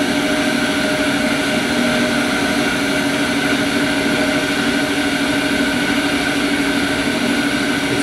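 Drive of an MTech vacuum furnace's door locking ring running steadily as the ring closes: a loud, even machine hum with a few fixed tones.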